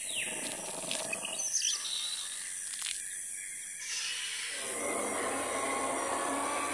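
Jungle ambience: bird chirps and calls over a steady high insect-like drone, with a fuller wash of noise coming in about four and a half seconds in.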